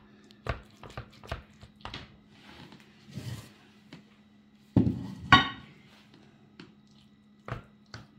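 Dishware and utensil sounds as a portion of baked pasta is cut and lifted out of a glass baking dish with a spatula: a run of light taps and knocks, a soft scrape, then two loud clattering knocks about five seconds in, the second ringing briefly, and one more knock near the end.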